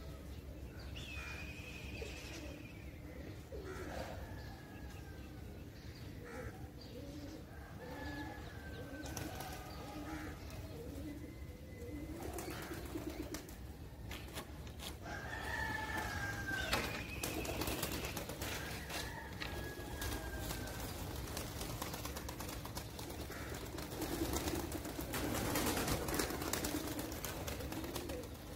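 Flock of domestic pigeons cooing, with wings flapping now and then. Higher, falling whistled calls come and go over the cooing, and there is a sharp click at about 17 seconds in.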